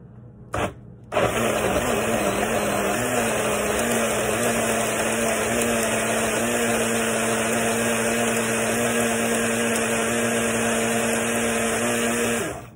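Small bullet blender's motor running, pureeing a seasoning mix of scallion, onion, garlic, thyme and spices in olive oil. A short pulse comes first, then the motor runs continuously for about eleven seconds and stops suddenly near the end. Its pitch wavers for the first couple of seconds, then holds steady.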